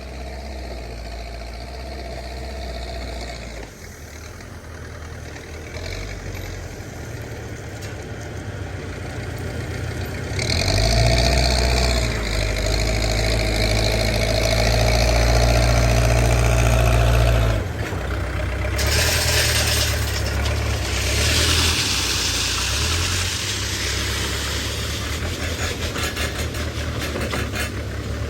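Backhoe loader's diesel engine running. About ten seconds in it works harder and louder, with a steady whine over the engine note, then drops back to a lower run after about seven seconds.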